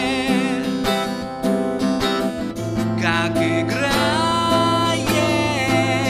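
Background music: a song with a singing voice over guitar, with a bass line coming in about halfway through.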